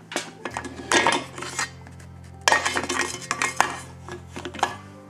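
Stainless-steel feed tray of an electric meat grinder being set onto the grinder head: metal clinking and scraping against metal in several short clusters.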